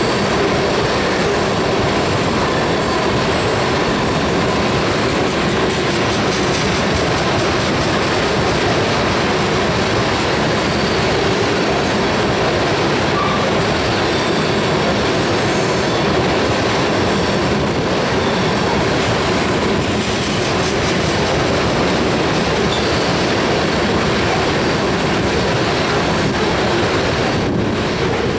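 Freight train's tank cars rolling past at steady speed: the continuous rumble and clatter of steel wheels on rail, holding an even level throughout.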